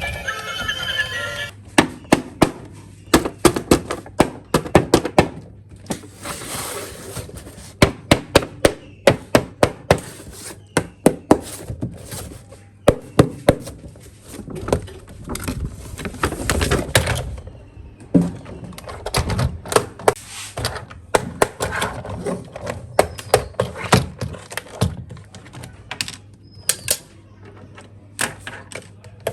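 Packaging being handled during an unboxing: a long run of sharp taps, clicks and knocks, with a few seconds of rustling or tearing about six seconds in.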